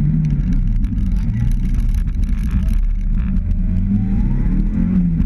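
Mitsubishi Lancer Evolution VI rally car's turbocharged four-cylinder engine heard from inside the cabin at speed, its note dipping about three seconds in and then climbing again as it pulls, over tyre and road noise.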